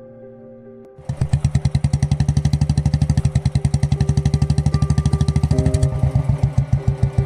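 Soft background music, then about a second in a motorcycle engine starts up loud with a rapid, even exhaust beat and keeps running.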